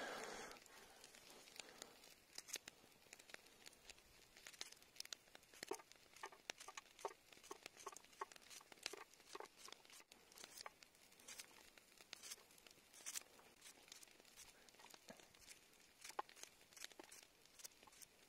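Knife slicing a cucumber held in the hand: an irregular run of faint, crisp cuts, with the rounds dropping into a metal bowl.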